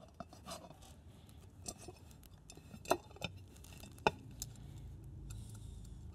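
Light metallic clicks and clinks of small nuts, bolts and a steel bracket being handled against an aluminum bullet tray as they are fastened by hand, with two sharper clicks about three and four seconds in.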